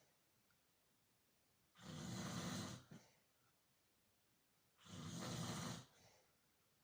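Snoring: two snores, each about a second long and about three seconds apart, each followed by a brief softer breath.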